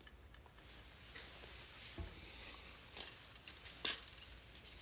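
A few small clicks and taps of handling close to the phone's microphone, the sharpest about four seconds in, over faint room tone.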